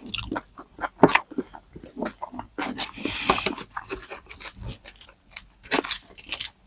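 Close-miked chewing and biting of crispy pata, a deep-fried pork knuckle, with irregular crunches and clicks from the crackling skin.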